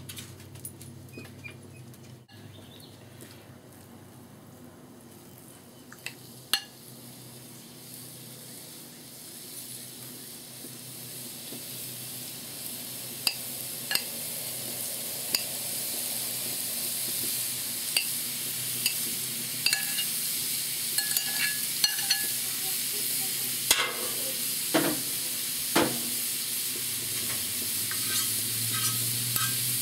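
Thinly sliced chicken sizzling on a hot Blackstone flat-top griddle, the sizzle building and getting louder from about a third of the way in as more chicken goes down on the buttered steel. A metal spatula clicks and scrapes against the griddle top now and then, more often in the second half.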